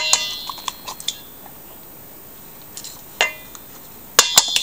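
Metal spoon knocking and scraping against a stainless-steel mixing bowl as sour cream is scraped out of its cup: a cluster of sharp clinks with brief metallic ringing at the start, a single knock about three seconds in, and a quick run of three near the end.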